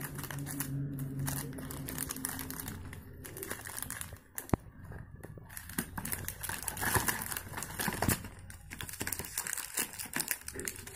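Plastic chocolate-bar wrappers and a cardboard gift box crinkling and rustling as they are handled and packed into the box, with many small clicks and taps.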